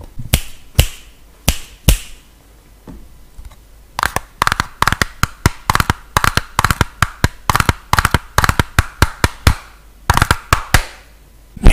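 Buttons of an air-conditioner remote control clicked close to the microphone: a few single clicks, then from about four seconds in a fast rhythmic run of clicks, several a second, tapped out like a melody.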